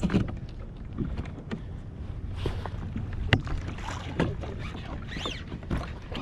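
Kayak on open water with a steady low wash of water and wind, scattered sharp clicks and knocks from fishing gear and the hull, and a brief high squeak about five seconds in.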